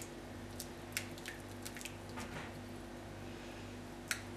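Fingers crumbling fresh baker's yeast into lukewarm water in a glass bowl, with faint soft squishes and a few small clicks, the sharpest one near the end. A steady low hum runs underneath.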